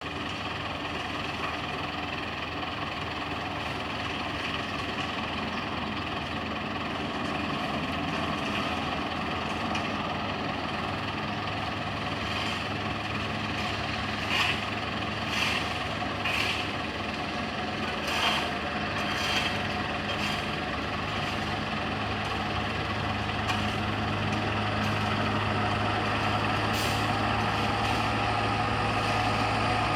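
A heavy truck's engine running steadily, slowly getting louder, with several short, sharp hissing or clanking sounds about halfway through.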